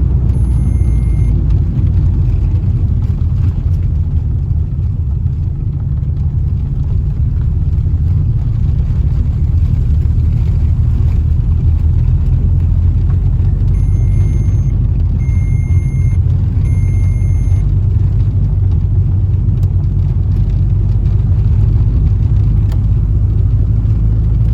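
Car driving along a road, a steady low rumble of engine and tyre noise. Three short high electronic beeps, about a second apart, sound a little past halfway through.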